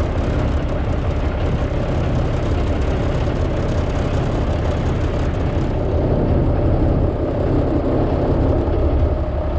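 Small boat's engine running steadily under way, a loud low rumble with a steady hum above it and rushing wind and water noise.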